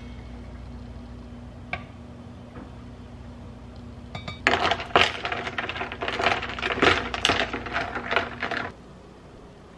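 Ice cubes clinking and rattling against a glass jar as coffee is poured over them and stirred with a glass straw, a dense run of clinks lasting about four seconds from the middle on. Under it a steady low hum runs until the clinking stops.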